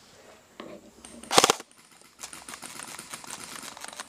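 Airsoft rifle firing one short, loud full-auto burst about a second in, then a fainter, rapid rattle of airsoft guns firing through the rest.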